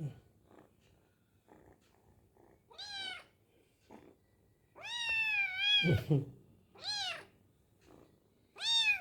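Kitten meowing four times in high-pitched calls, the second one longest with a wavering pitch.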